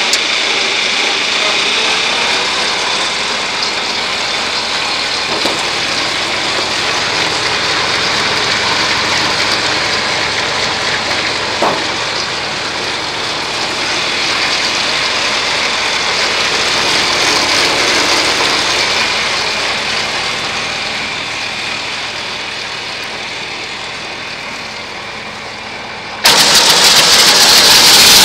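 New Holland 354 grinder mixer running, driven by a tractor's PTO shaft: a steady mechanical noise. About 26 seconds in it turns suddenly much louder and hissier.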